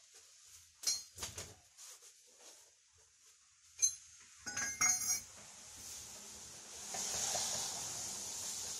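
Metal tools and parts clinking and clattering: a few sharp clinks, then a quick cluster of them about halfway through. A steady hiss swells in the second half.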